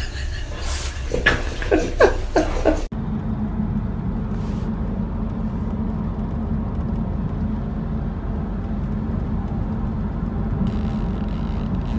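Steady low rumble of road noise inside a moving car's cabin. It follows an abrupt cut about three seconds in; before the cut come a few short sounds that slide up and down in pitch.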